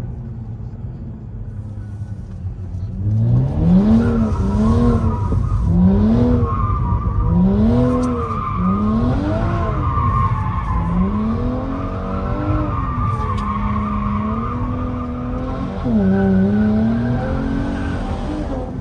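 BMW 335i's turbocharged 3.0-litre straight-six revving hard, its revs climbing and dropping again and again, under a continuous tyre squeal as the car slides in a powerslide. Before the revving and squeal start about three seconds in, only a steadier low engine rumble is heard.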